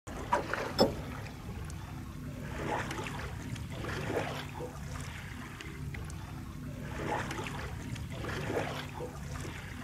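Water sloshing and rushing against a sailing trimaran's hull in swells about every second and a half, over a steady low hum. Two sharp knocks in the first second.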